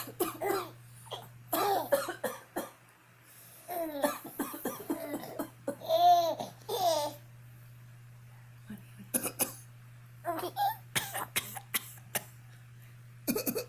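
An adult coughs in short bursts and a baby laughs in response, with a run of rising-and-falling giggles and squeals in the middle, then more coughs. A low steady hum runs underneath.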